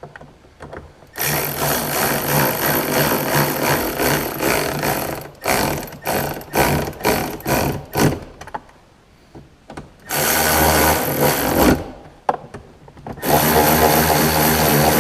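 A power tool running in trigger bursts as it snugs down the side mirror's mounting bolts: one steady run of about four seconds, a quick string of short pulls, then two more runs of a couple of seconds each near the end.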